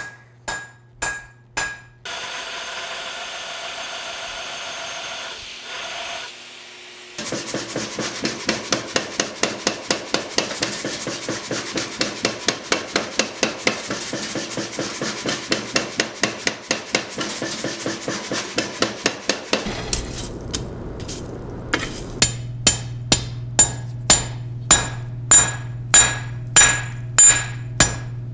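Blacksmith forging hot steel: a few ringing hand-hammer blows on the anvil, then a steady mechanical noise for a few seconds. Then a power hammer pounds the hot steel in an even run of about three blows a second. Near the end come slower, sharper ringing blows, about one and a half a second, over a steady hum.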